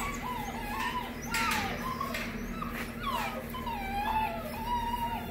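Great Pyrenees puppies whining and whimpering: a string of short, high, wavering cries, one after another.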